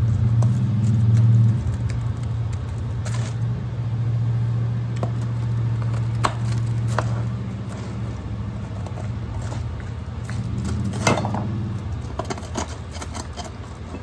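Pizza cutter wheel rolling through a pizza on a foil-lined baking sheet: scattered crunches and scrapes of the wheel on the crust and foil, the sharpest about eleven seconds in. Under it a steady low hum runs, then stops near the end.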